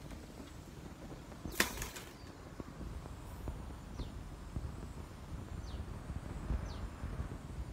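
Wire clothes hangers clink together once, sharply, with a brief metallic ring, about one and a half seconds in. Later a bird gives short falling whistled notes, three times.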